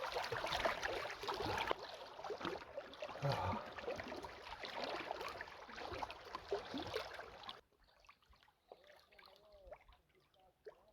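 Lake water lapping and trickling at the shore: a steady rushing noise full of small splashes. It cuts off abruptly about seven and a half seconds in, leaving a much quieter stretch with a few faint short calls.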